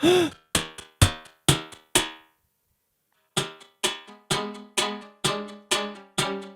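Beatbox loop station music made of short pitched notes that fade quickly. They break off for about a second, then return as a steady repeating pattern of about two notes a second.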